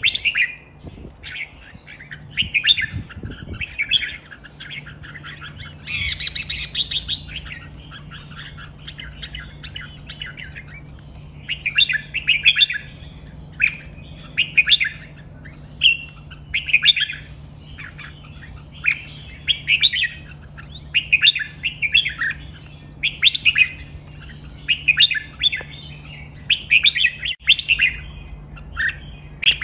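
Caged red-whiskered bulbuls singing short, bright chirping phrases again and again, one every second or two, with a louder burst about six seconds in. A steady low hum runs underneath from a few seconds in.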